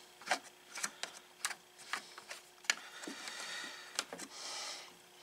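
Faint, scattered clicks and light knocks of small plastic parts being handled inside the open side of a generator, with two short rasping stretches in the second half.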